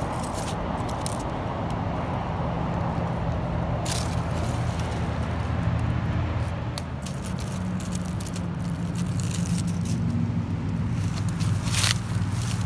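Dry leaf litter crackling and scraping under hands and feet on the forest floor, as a few sharp crackles over a steady low hum.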